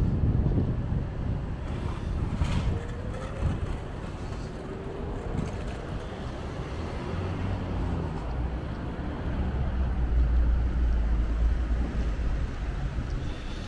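City street ambience: a steady hum of traffic with some wind on the microphone, and a low rumble that swells in the second half.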